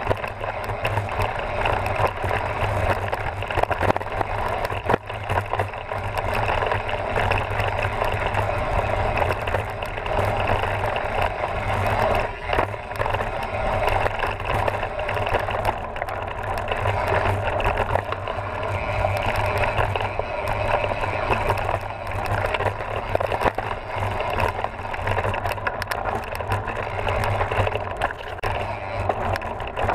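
Mountain bike riding over a dry dirt trail: steady noise of knobby tyres rolling over dirt and loose stones, with the bike rattling over the bumps.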